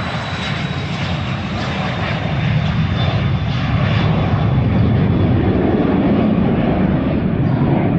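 Jet aircraft taking off: a rushing engine noise that grows steadily louder, with a thin high turbine whine drifting slightly down in pitch.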